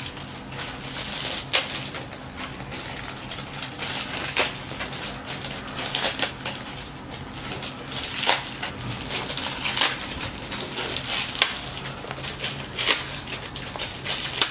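Plastic blind-bag toy wrappers crinkling and tearing as they are handled and opened, with irregular sharp crackles.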